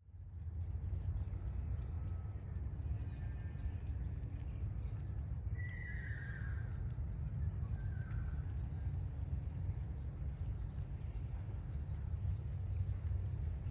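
Quarter Horse stallion whinnying: a falling call about six seconds in, then a shorter one around eight seconds, over a steady low rumble.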